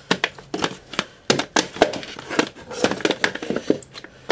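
Irregular clicks, knocks and crinkling of toilet plumbing parts and tools being handled, several sharp taps a second.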